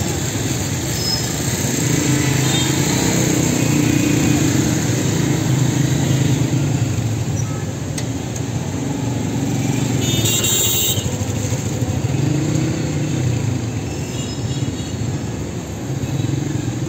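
Busy street traffic, mostly motorcycles and cars running close by, a steady engine rumble that swells and fades as vehicles pass. A brief shrill sound cuts through about ten seconds in.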